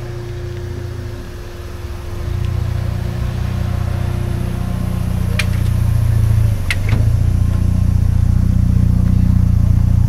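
Car engine running steadily at low revs, getting louder about two seconds in, with a brief dip in its note a little past the middle. Two short sharp ticks sound over it.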